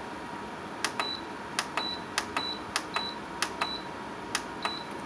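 Buttons on a Mugen air cooler's control panel pressed again and again, cycling the timer setting: about a dozen sharp clicks, most followed by a short high beep. Underneath, the cooler's fan runs with a steady rush.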